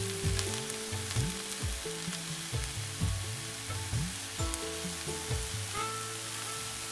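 Wooden spatula stirring and turning potato, pea and cashew filling in a frying pan, in repeated strokes about two a second, with a light sizzle. The strokes thin out near the end.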